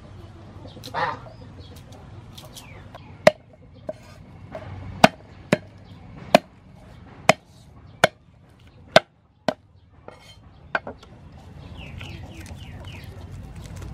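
Cleaver striking garlic cloves on a wooden chopping board: about ten sharp knocks, roughly one a second, crushing the cloves to loosen their skins. Hens cluck in the background.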